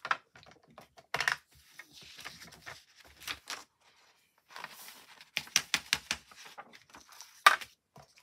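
A sheet of paper rustling and flexing as loose glitter is tipped off it into a plastic glitter tray, mixed with quick taps and clicks of the tray and glitter pot on the craft mat. A sharp knock near the end is the loudest sound.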